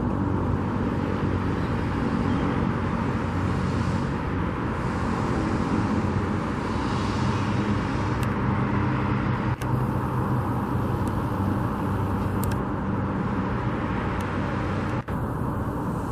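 Steady motor-vehicle traffic noise: a continuous rumble with a low engine hum underneath, and a couple of brief clicks partway through.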